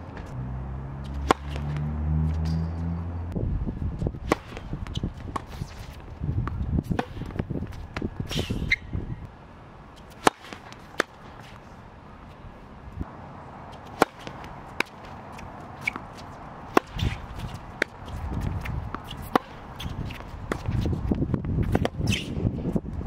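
Tennis rallies on a hard court: a tennis ball struck by rackets and bouncing, sharp hits at irregular intervals, with shoe scuffs on the court surface. A low hum runs under the first few seconds.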